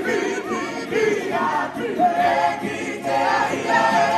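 A mixed group of men and women singing together in full voice, accompanied by strummed ukuleles.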